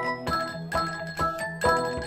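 Background music with bright mallet-percussion notes like a marimba or glockenspiel, played in a steady rhythm.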